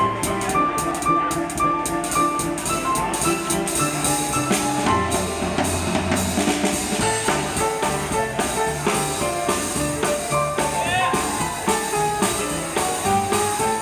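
Small jazz combo playing a minor-key swing tune: drum kit with cymbals keeping time, upright bass walking underneath, and a melody line in held notes.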